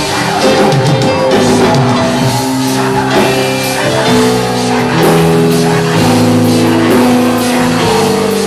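Loud upbeat worship music from a rock-style band: held electric guitar or keyboard chords over a steady drum beat.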